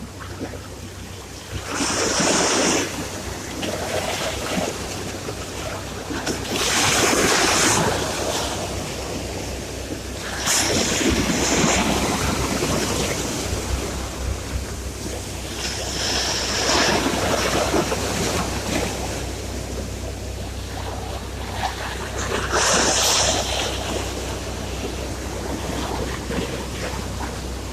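Sea waves breaking on a shore, in five swells of surf about four to six seconds apart over a steady wash.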